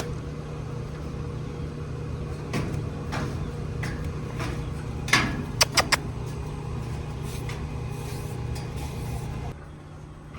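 Steady low machine hum with a few scattered knocks and clatters; the hum drops away near the end.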